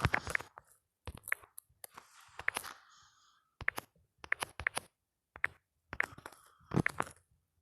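Phone on-screen keyboard tap sounds: sharp clicks at an uneven pace, some in quick runs of two to four, with short pauses between.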